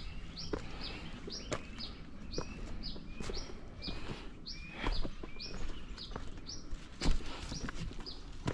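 A bird calling over and over: short high notes, each falling in pitch, about two a second. Under it are scattered knocks and footfalls of someone scrambling up a rocky trail, the loudest about seven seconds in.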